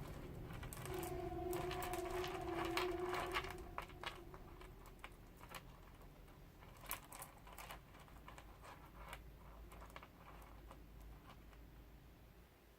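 Small, irregular clicks of plastic beads knocking together as they are handled and threaded onto elastic cord. A faint steady tone sounds through the first few seconds.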